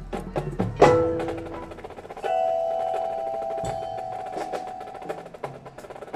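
Marching band percussion playing a sparse passage: rapid wood-block-like clicks, a loud struck chord with ringing bell-like tones about a second in, then a held chord from about two seconds in.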